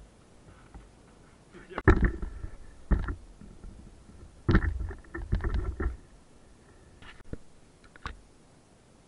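Handling noise on the camera's microphone: a run of dull knocks and rubbing, loudest about two seconds in and again from four and a half to six seconds, with two lighter knocks near the end.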